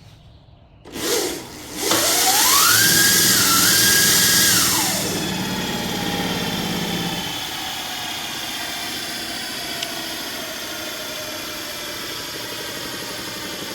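Razor RSF650 electric motorcycle's motor spun up on the stand with the rear wheel off the ground: a brief whine, then a whine that rises in pitch, holds, and falls away as the throttle is released. The wheel and drive then keep whirring steadily as they coast. The speed switch is set to its middle position.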